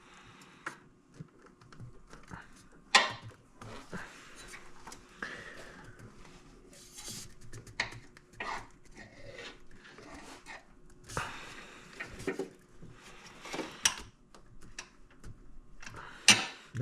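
Intake pipe and hose clamps being worked into place by hand: scattered clinks, knocks and scraping, with a sharp knock about three seconds in and another near the end.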